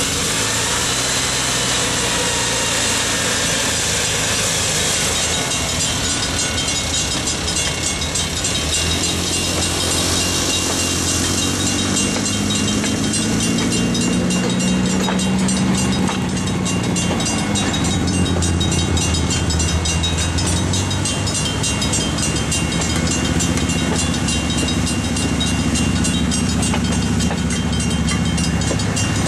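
A procession of railway speeders, small gasoline track motor cars including a Fairmont, running by one after another on the rails, their engine drone swelling as each car passes. A rapid, even ringing, likely the crossing signal's bell, sounds over them.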